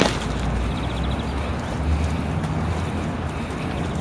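Outdoor background noise with a low, uneven rumble, opening with a sharp click and carrying a faint quick high trill about a second in.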